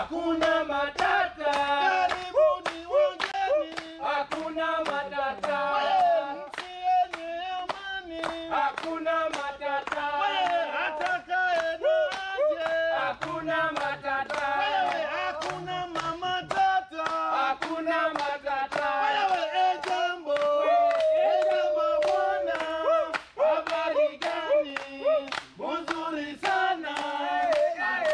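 A group of men singing together while clapping their hands in a steady rhythm.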